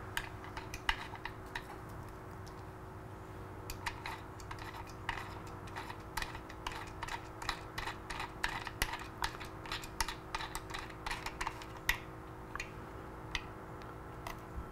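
Light, irregular metallic clicks and taps as bolts are threaded in and turned down by hand on a motorcycle engine-cover case saver, more frequent from about four seconds in. A steady faint hum runs underneath.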